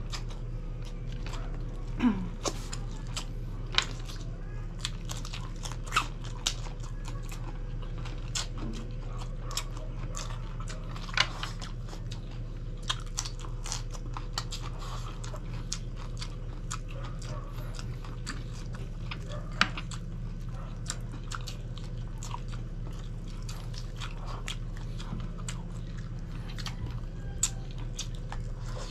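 Close-up eating sounds: chewing and biting with scattered sharp crunches as grilled chicken is eaten by hand. A steady low hum runs underneath.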